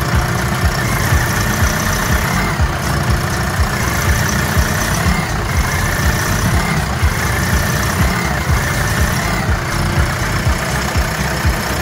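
Repaired Doosan G2 four-cylinder diesel engine idling steadily. The knocking is gone now that the seized intake valve has been dealt with by machining the cylinder head.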